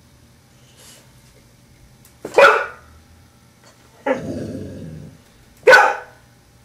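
Blue-nose pit bull barking twice, about two and a half and about six seconds in, with a low growl lasting about a second between the two barks.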